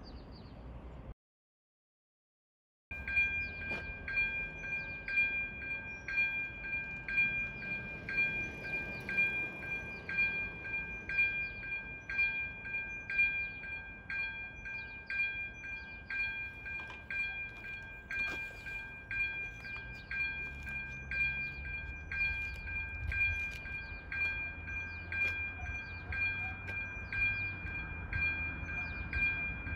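Electronic level-crossing bell (ZV 02) ringing a steady repeated ding, about two strokes a second, starting about three seconds in: the crossing's warning has been triggered by an approaching train.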